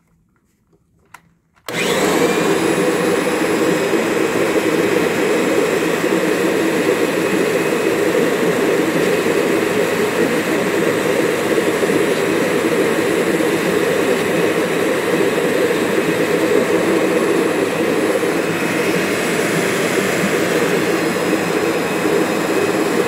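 Kirby G-series upright vacuum cleaner's motor switched on a couple of seconds in and running steadily with a steady whine, as its self-propel transmission is tested. A higher whine joins in near the end.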